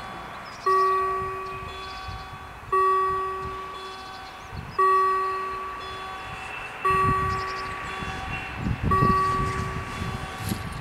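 German level-crossing warning bell striking about once every two seconds, five strokes, each ringing out and fading before the next. It is the crossing's warning that the barriers are about to lower. A low rumble joins from about seven seconds in.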